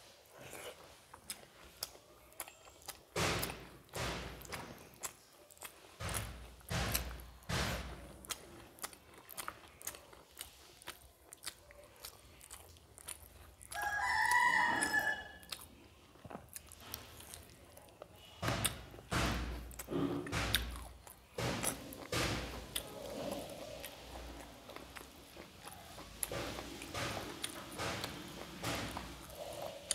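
Close-up wet chewing and lip smacks while eating rice and curry by hand, with scattered clicks and soft thumps. About 14 s in, a loud pitched call with a rising and falling pitch cuts through for about a second and a half.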